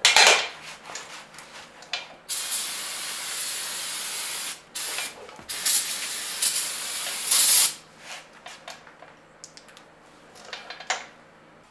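Aerosol brake cleaner hissing from the can in several bursts, the longest about two seconds, as it is sprayed onto a new disc brake rotor and caliper to clean them. A few light taps follow near the end.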